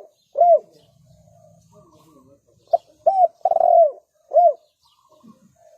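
Spotted dove cooing: a single arched coo right at the start, then a full phrase of four coos about three seconds in, a short note, an arched one, a longer held one and a final arched one.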